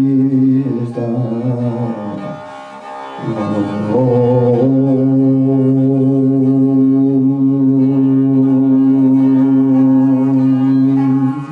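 Tuvan throat singing: a low, steady vocal drone with an overtone line above it, sung over a bowed Tuvan fiddle. The voice breaks off for a breath about two seconds in, then holds one long note for about seven seconds before breaking again at the end.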